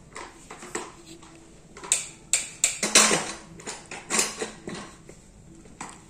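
Large plastic toy dump truck being dragged on a foam play mat, with the plastic toys loaded in its bed clattering together. The clatter is a run of sharp knocks in the middle, loudest about three seconds in.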